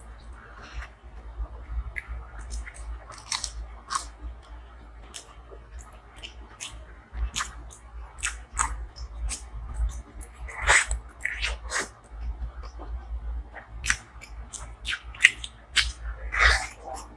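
Close-miked person chewing and biting food: wet mouth clicks and smacks with occasional crunchy bites, in an uneven rhythm, louder around the middle and near the end.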